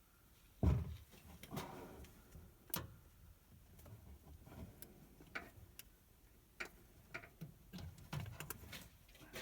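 Scattered light clicks and knocks of hand and tool work on a truck engine, with a louder thump just under a second in, as a stubborn part is worked loose.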